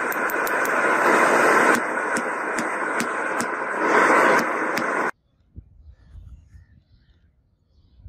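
Red-hot steel bar being hammered on a block anvil: sharp strikes a few times a second over a loud, steady rushing noise that swells now and then. Everything cuts off abruptly about five seconds in, leaving faint handling sounds.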